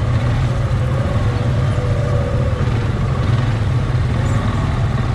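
Tour ATV's engine running steadily under way, a low rumble with a faint whine that drifts up and down a little.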